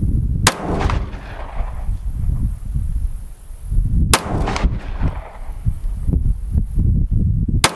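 Three 9mm pistol shots from a Smith & Wesson M&P9L C.O.R.E., about three and a half seconds apart, each trailing off briefly. Wind rumbles on the microphone throughout.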